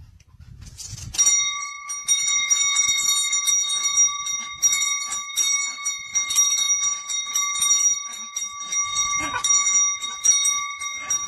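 Small hanging metal door bell rung over and over by a dog jumping at its pull-cord. From about a second in the clapper strikes rapidly, and the bell rings on without a break.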